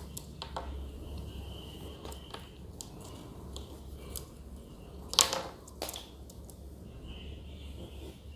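Faint scratching of a ballpoint pen on paper as tree branches are drawn, over a low steady hum, with a short sharp sound a little after five seconds in and a smaller one just after it.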